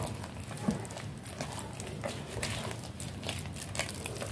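Spatula stirring thick flour-and-tapioca dough in a glass bowl: irregular scrapes and light knocks against the glass, with one sharper knock under a second in.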